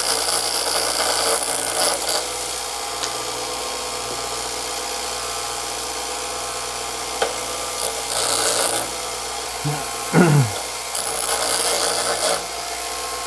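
Bench grinder running steadily with a motor whine while short steel rods held in pliers are ground against the wheel, with bursts of grinding hiss near the start, around eight seconds in and again around eleven to twelve seconds in. A short falling sound comes about ten seconds in.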